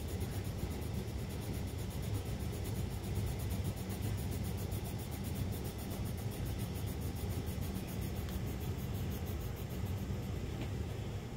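Black colored pencil shading back and forth on sketchbook paper: a steady rubbing noise, heard mostly as a low rumble.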